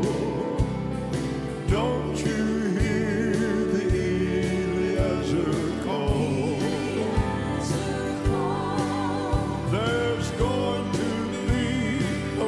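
Live gospel music: grand piano, keyboard and drums playing a steady beat, with singing over it.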